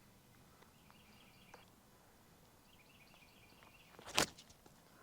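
Faint birds chirping in the open air, with a single sharp thump about four seconds in.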